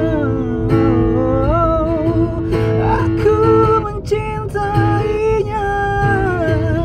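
A man singing a slow pop ballad in long, wavering held notes over acoustic guitar accompaniment.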